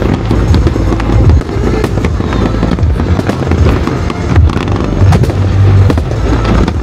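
Aerial fireworks bursting in rapid succession: many sharp bangs and crackles over a continuous deep booming rumble.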